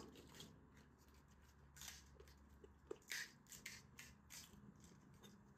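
Faint, short, crisp crackles, a handful over a few seconds: a hollow pani puri shell being broken open and filled by hand and spoon.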